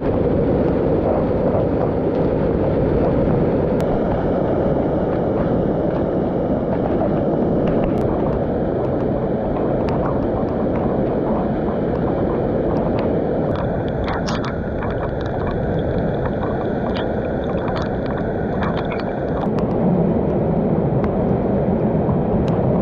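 A fast-flowing rainforest stream rushing and splashing over rocks in small cascades close to the microphone: a loud, steady, low rush of water.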